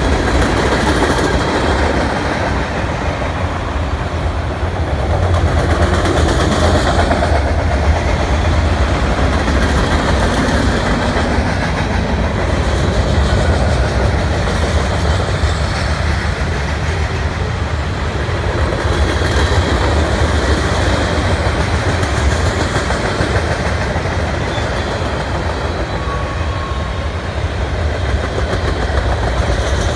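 A CN freight train's cars rolling steadily past close by: the continuous noise of steel wheels on rail from a long string of tank cars, autoracks, boxcars and hoppers.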